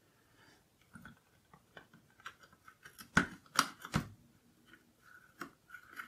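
Light clicks and short scrapes of small screws and plastic computer-case parts being handled during reassembly, the loudest a few quick clicks about three to four seconds in.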